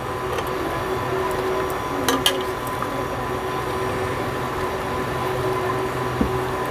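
Chicken in a wet yogurt marinade being mixed by hand in a steel pot, with soft squelching and a few sharp clinks of glass bangles about two seconds in, over a steady hum.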